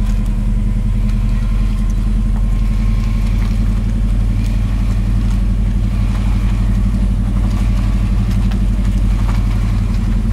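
Car engine running steadily at low speed, a constant low hum that holds one pitch without revving.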